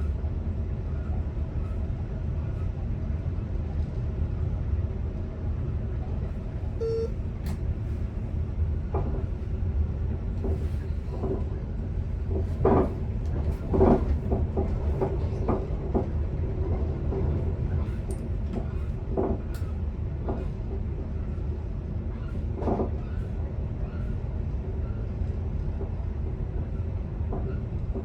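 Commuter electric train running along the track, heard from the driver's cab: a steady low rumble with scattered knocks, two louder ones about halfway through. A short beep sounds about seven seconds in.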